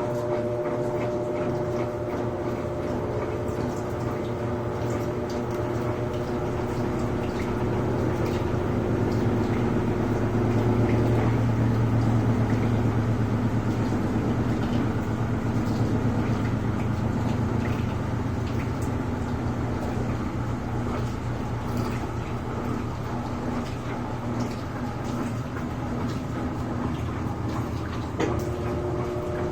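Electrolux LTD13 top-loading washing machine in its spin cycle: the motor and drum running with a fast, even pulsing, and water draining. A steady whine stops about a third of the way in as the spin grows louder, and returns near the end.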